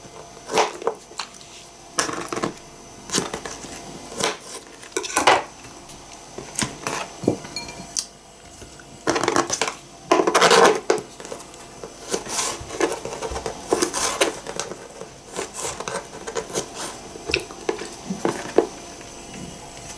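Small kitchen knife cutting a soft pear into chunks, with irregular sharp taps of the blade on a plastic cutting board.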